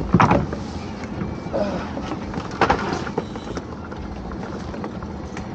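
Two short knocks in a small open boat, about two and a half seconds apart, over a steady rushing background.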